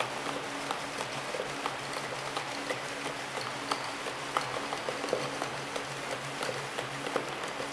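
MT-400 horizontal labeling machine running: a steady mechanical hiss with a low hum that switches on and off again and again, and many small irregular clicks as the tubes rattle along the roller conveyor under the pressing belt.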